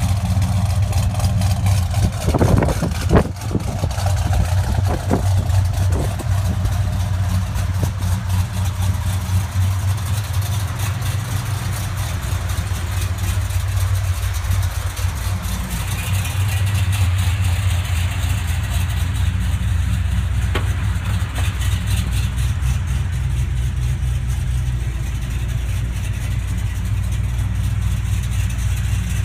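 Dodge R/T's V8 idling steadily with a low, even exhaust note. A few sharp clicks or knocks land in the first few seconds.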